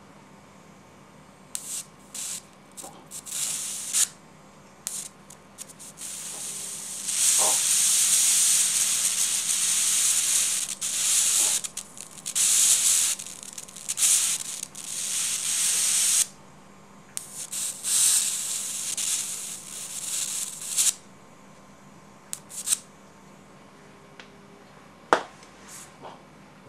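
Homemade Tesla coil throwing a purple spark discharge that hisses and crackles in irregular on-and-off bursts, loudest and most continuous from about 7 to 16 seconds in. It falls quiet after about 21 seconds, and a single sharp click comes near the end.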